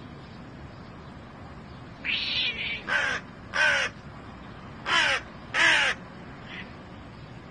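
Hooded crow cawing: a first call about two seconds in, then four loud caws in two pairs, and a faint short caw near the end.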